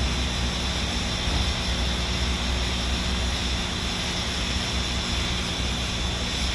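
Steam locomotive standing with steam up while it takes on water from a fire hose: a steady hiss with a low hum and rumble underneath.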